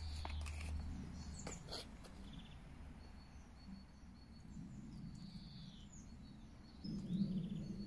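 Outdoor ambience with a few faint bird chirps, two small clicks about one and a half seconds in, and a low rumble that grows louder near the end.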